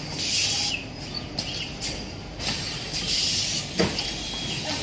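Automatic screw-locking machine cycling: repeated short bursts of air hiss from its pneumatic suction screw feed, over a steady low machinery hum, with a sharp click about four seconds in.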